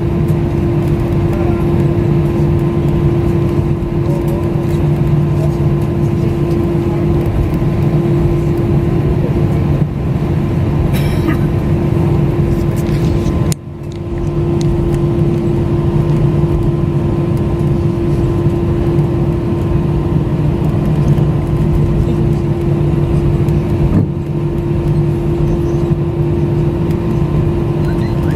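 Cabin noise inside an Airbus A320 taxiing after landing: a steady, loud drone from the engines and air conditioning, with constant low hums. About halfway through it briefly drops away.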